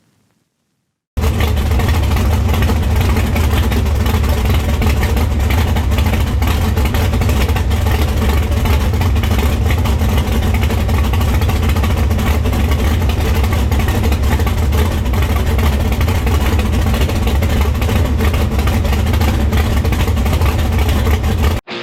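Drag-racing car engine running very loud and steady, without revving up or down. It starts suddenly about a second in and cuts off abruptly near the end.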